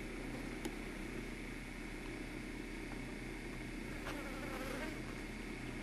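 Faint steady buzzing of insects, with a low steady hum underneath and a few faint ticks.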